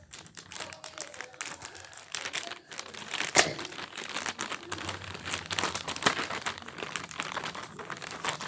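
Packaging crinkling and crackling as a parcel is opened, with many irregular sharp crackles; the sharpest comes about three and a half seconds in.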